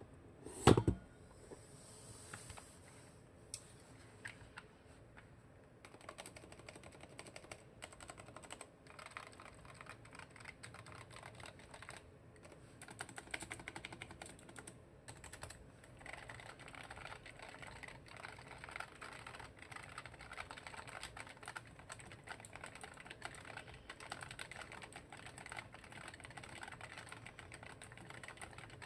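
Typing on a low-profile mechanical keyboard with red switches, the keys clicking. A single loud thump comes about a second in, followed by scattered keystrokes. From about six seconds there is steady, fast typing, which gets busier in the second half.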